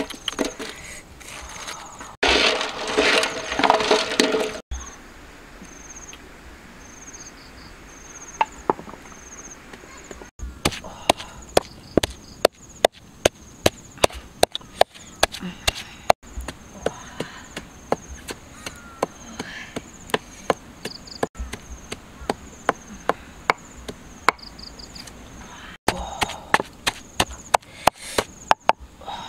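Pestle pounding red chilies and salt in a mortar: sharp knocks at about two a second through most of the second half. Near the start there is a louder burst of noise lasting a couple of seconds, and an insect chirps in a faint, repeating high pulse throughout.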